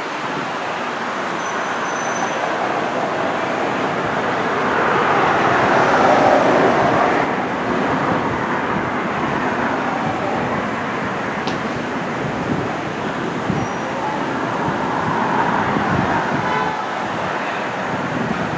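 Road traffic going by: a steady wash of vehicle noise that swells as vehicles pass, loudest about six seconds in and again near the end.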